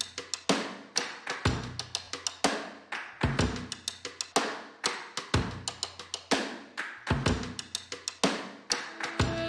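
Background music: a steady drum beat, with a strong hit about once a second and lighter hits between, over a low bass note.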